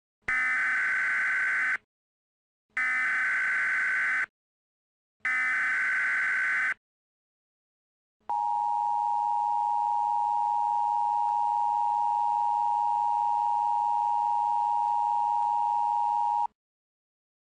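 Emergency Alert System tones, slowed down: three short bursts of SAME header data, each about a second and a half with short gaps between, then the steady two-tone EAS attention signal held for about eight seconds.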